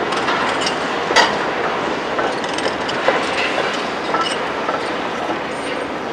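Hydraulic excavator at work on a building demolition: a steady machine noise with scattered clanks and clinks of metal and rubble, the sharpest about a second in and another about three seconds in.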